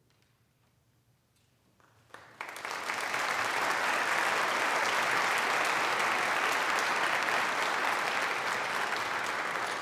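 A held hush of near silence after the final chord, then audience applause breaks out about two seconds in, swells within a second and carries on steadily.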